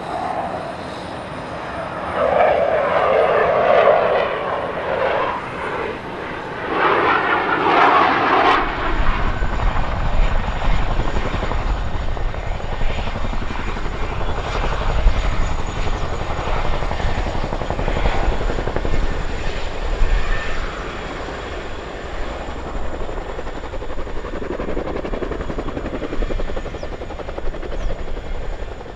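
Twin jet engines of an EF-18 Hornet roaring in two loud surges as it manoeuvres. About eight and a half seconds in, the sound cuts abruptly to a CH-47 Chinook's tandem rotors beating steadily, with a high steady turbine whine, as it hovers close to the ground.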